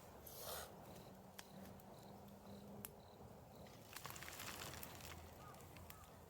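Near silence outdoors, with faint insect chirps repeating about twice a second, a few small clicks, and a brief rustle about four seconds in.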